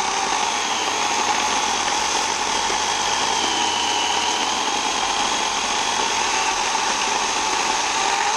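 Portland 14-inch, 9-amp corded electric chainsaw running under load as its chain cuts through an overhead tree branch. The motor whine is steady, and its pitch sags a little through the middle of the cut.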